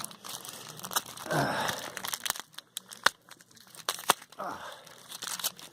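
Beyblade Burst booster packaging being handled and opened: crinkling and tearing of wrapper and cardboard with many small sharp clicks and taps, and two short rustles.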